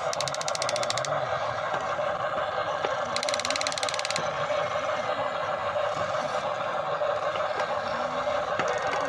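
Small electric motors and gearboxes of a toy RC excavator whirring steadily, with two bursts of rapid fine ticking, each about a second long: one right at the start and one about three seconds in.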